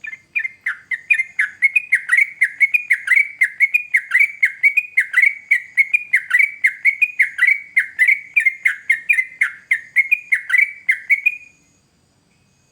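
Yellow-vented bulbul (trucukan) singing a long, fast run of repeated downward-sweeping whistled notes, about three a second, that stops abruptly near the end.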